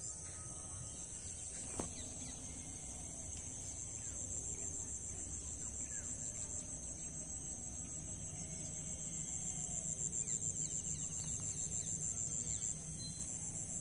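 Insects chirring in a steady, high-pitched, rapidly pulsing drone, with faint bird chirps here and there.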